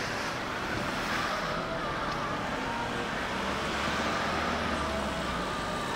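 City street traffic noise: cars running past, with a low engine rumble swelling about three seconds in.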